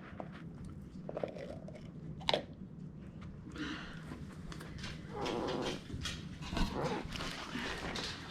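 A dog biting and chewing on a crunchy donut toy, making a run of sharp crunching clicks, with a brief pitched sound about five seconds in.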